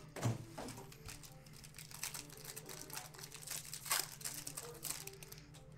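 Foil wrappers of Bowman Chrome Jumbo baseball card packs crinkling and tearing as packs are opened by hand, in irregular crackles with louder ones about a third of a second in and near four seconds.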